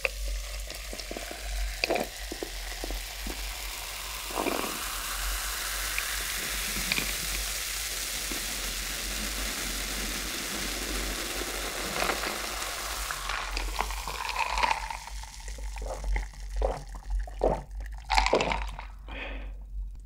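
Cola poured from a glass bottle over ice into a glass jar, fizzing with a steady hiss as the foam rises for about twelve seconds. After that comes a run of knocks and handling clatter.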